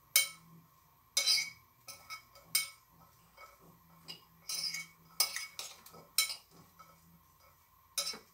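A metal spoon clinking and scraping against a glass bowl as corn kernels are stirred, in irregular taps and scrapes with short pauses between them.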